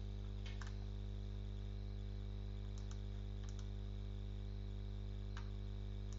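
Faint computer mouse clicks, about eight, several in quick pairs, over a steady low electrical hum with a faint high whine.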